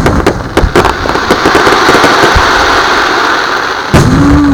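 Fireworks going off: a rapid run of pops thickening into a dense, steady crackle, then one loud bang about four seconds in.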